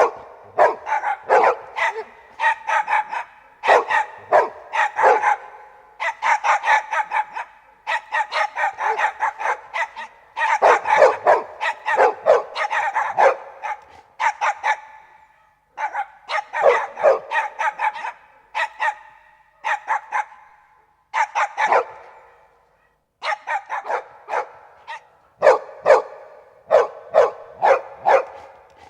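Several dogs barking together in rapid, overlapping volleys, in bouts broken by short pauses.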